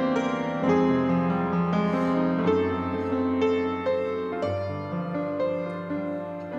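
Piano instrumental interlude of a slow hymn tune: chords and a melody line struck note by note, fading slightly toward the end.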